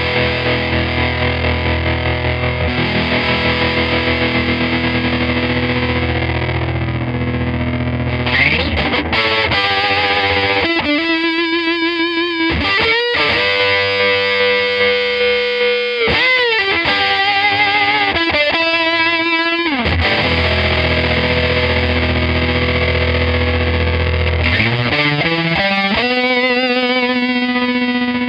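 Electric guitar played through a Stinger fuzz pedal into an EarthQuaker Devices Hummingbird repeat-percussion tremolo: thick fuzzed chords with a rippling chop, then single held notes that waver in the middle, and a note sliding upward near the end.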